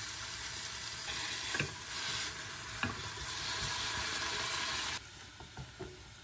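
Soy-sauce seasoning sizzling as it reduces in a hot frying pan with sliced onions, with two sharp clicks of a utensil on the pan. About five seconds in the sizzle cuts off suddenly, leaving quieter scraping of a spatula stirring the onions.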